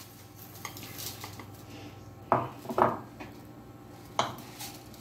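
Kitchen dishes knocking: a steel tumbler and white dishes being handled and set down on a wooden chopping board, giving three short clinks, two close together a little after two seconds in and one about four seconds in.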